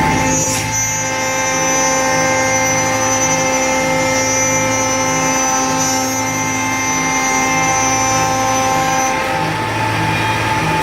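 CNC wood router running: a steady spindle whine of several pitches over a low hum that pulses about twice a second, the whine dropping away about nine seconds in.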